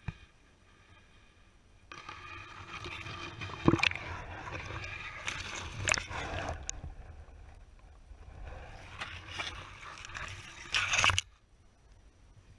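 Reed canary grass scraping and rustling against a camera housing as it is pushed down through the clogged channel into the water, with sloshing and a few sharp knocks. Starts about two seconds in and cuts off suddenly near the end.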